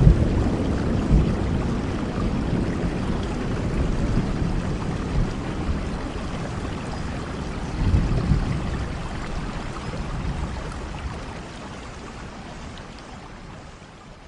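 Steady rain with rolling thunder: a low rumble swells about eight seconds in, and the whole sound fades out gradually toward the end.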